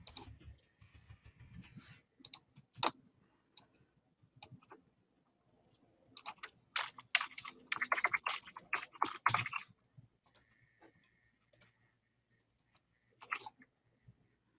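Computer keyboard typing and mouse clicks: scattered single clicks, then a quick run of typing about six seconds in that lasts some three seconds, and a short burst of keystrokes near the end.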